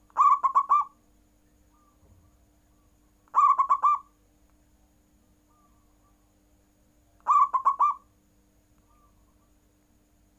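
Zebra dove (perkutut) cooing three times, a few seconds apart; each coo is a quick run of four or five notes lasting under a second.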